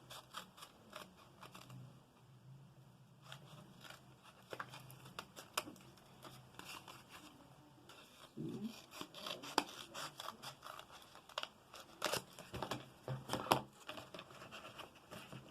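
Scissors cutting a cardboard toilet-paper roll, with faint irregular snips and paper crinkling and rustling as it is handled.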